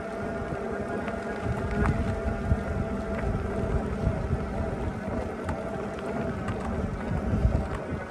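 Fat-tyre electric bike climbing a steep gravel hill: the motor hums steadily under load over tyre noise on the gravel, with low wind buffeting on the microphone that swells about two seconds in and again near the end.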